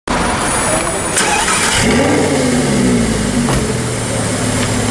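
Lamborghini Gallardo LP570-4 Performante's V10 engine starting. About two seconds in it catches with a short flare of revs, then the revs fall and settle to a steady idle.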